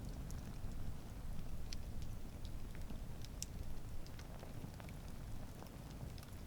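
Wood campfire crackling: scattered sharp pops and ticks at irregular intervals over a low, steady rumble of the burning fire.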